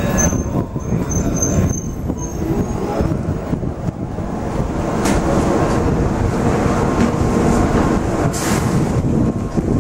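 Steady low rumble of an N700-series Shinkansen train standing at a station platform, with two short hisses about five and eight seconds in.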